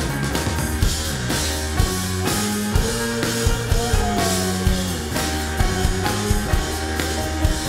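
A live rock trio playing an instrumental: keyboards, a drum kit and electric bass, heard through the soundboard mix. Steady bass notes and drum hits run under the keys, with a short sliding keyboard note about halfway through.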